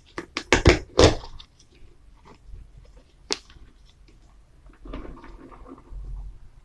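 Snap-on plastic lid of a plastic tub being pried open: a quick series of sharp snaps and creaks in the first second and a half, and one more click about three seconds in. Then softer scraping and rustling of plastic as the lid, with electrodes hanging from it, is lifted out of the tub.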